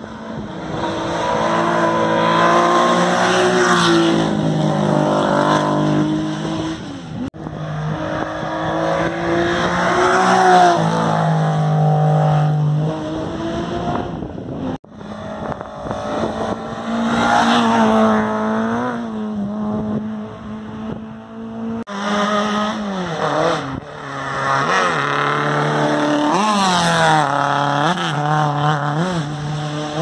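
Historic rally cars' petrol engines revving hard along a tarmac stage, the pitch climbing through each gear and dropping on the shifts and on lifting off for the bends; several car passes cut together. Near the end the revs rise and fall quickly several times in a row.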